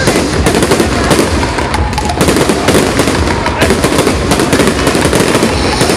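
Fireworks display: a dense, unbroken barrage of bangs and crackling from bursting aerial shells.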